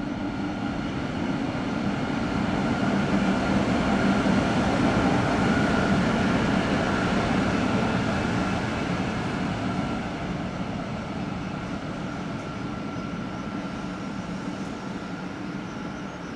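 Two coupled electric locomotives running light past on the rails: a steady mechanical hum with a couple of low tones and a fainter higher whine. It builds to its loudest around five seconds in, then slowly fades as they move away.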